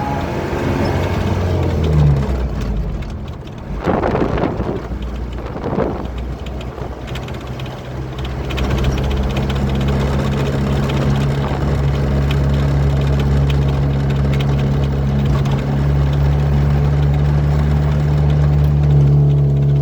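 Truck's diesel engine running on the road, a steady low drone that holds its pitch through the second half. Two brief louder rushes of noise come about four and six seconds in.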